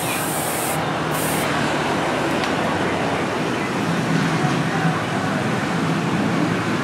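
Aerosol spray can hissing in two short bursts, about a second and then half a second, as a coating is sprayed onto a steel knife blade, over steady background noise.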